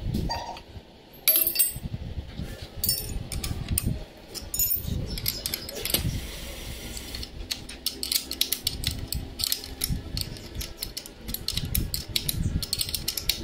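Light metallic clicks and rattles as a motorcycle center stand and a small metal part are handled, over low rubbing handling noise. The clicks come thickest in the second half.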